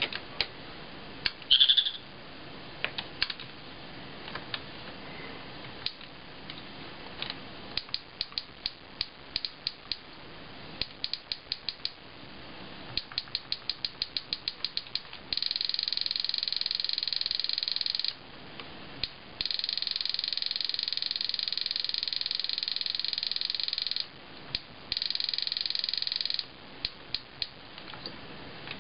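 Sharp Mobilion HC-4500 handheld PC giving key clicks: single clicks as keys are pressed, then fast even runs of clicks that merge into a steady buzzing tone three times while a held key auto-repeats. About two seconds in there is a short, loud electronic chirp.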